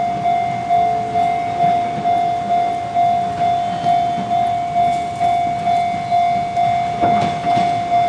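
Japanese level-crossing warning bell ringing its steady electronic 'kan-kan' at a little over two strikes a second. A low rumble rises about seven seconds in.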